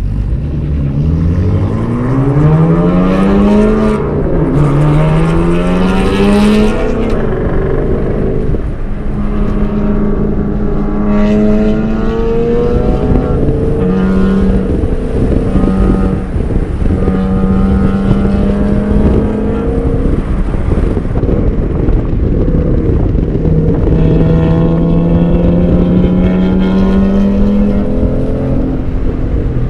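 2022 Ford Shelby GT500's supercharged 5.2-litre V8, heard from inside the cabin, accelerating out of the pit lane: the engine note climbs, drops at an upshift about four seconds in, and climbs again. It then holds a steadier drone at around 50 mph and rises slowly again near the end.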